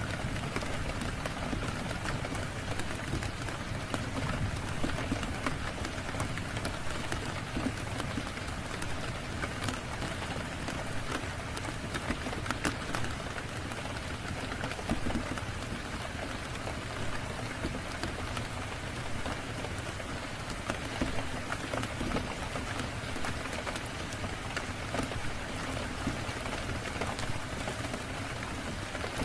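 Steady rain falling on a surface, with scattered small sharp ticks throughout.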